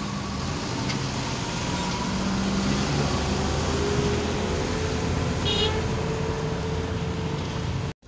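Road noise heard from a moving car on a flooded, wet street: a steady hum of engine and tyres with traffic around. A short high-pitched beep sounds about five and a half seconds in, and the sound cuts off abruptly just before the end.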